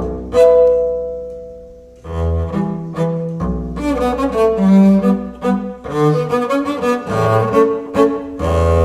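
Background instrumental music in a string-instrument sound, with pitched notes over low bass notes. A note rings out and fades near the start before a gap about two seconds in, then a busier run of notes follows.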